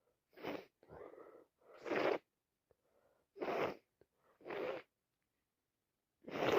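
Short, noisy, congested breaths and sniffs from a woman with a heavy head cold, about a second apart. The last one, near the end, is the loudest.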